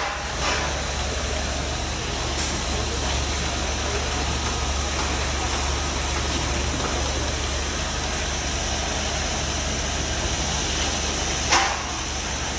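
Concrete pump truck's diesel engine running steadily while it pumps concrete through the boom hose, with a brief sharp sound near the end.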